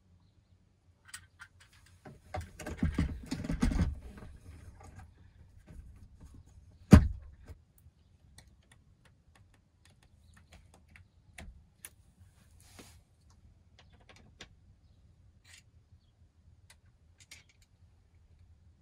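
Handling noises from a cordless drill and its bits: a rattling, clattering stretch about two seconds in, one sharp click about seven seconds in, then scattered light clicks.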